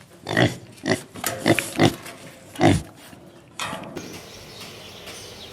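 A quick series of about six short animal calls in the first three seconds, then a faint steady hiss.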